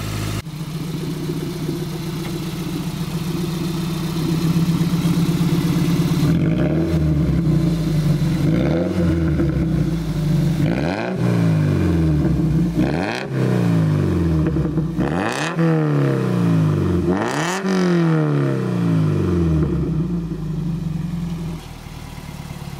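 Toyota MR2 ZZW30's 1ZZ-FE four-cylinder engine idling through a custom TIG-welded stainless steel exhaust with a valve and twin tips. After about six seconds it takes about six quick throttle blips, roughly two seconds apart, the later ones revving highest, then settles back to idle near the end.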